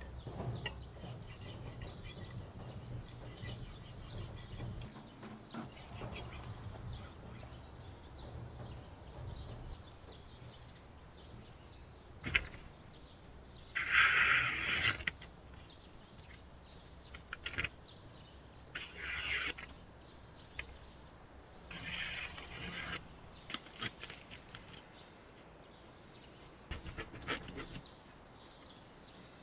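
A sheet of newspaper rustling and crackling in a few short bursts, the loudest about halfway through, with small clicks of handling in between. A low hum runs through the first few seconds.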